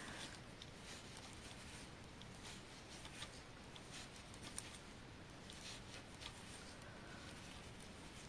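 Faint, scattered light clicks and rustles of 3 mm knitting needles and yarn as stitches are knitted, over a low room hiss.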